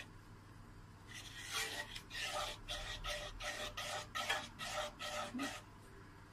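A utensil stirring thick cheese sauce in a pan: quick repeated scraping strokes, several a second, starting about a second in and stopping near the end.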